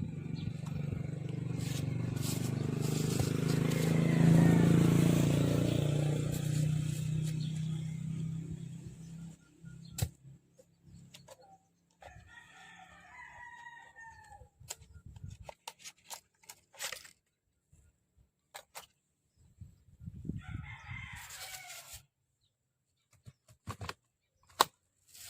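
A small motor runs with a steady hum that swells and then stops about nine seconds in. After it, a rooster crows and chickens cluck, with scattered clicks.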